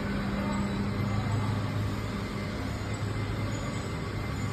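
Steady low hum of running factory machinery over a constant background noise, with no distinct knocks or changes.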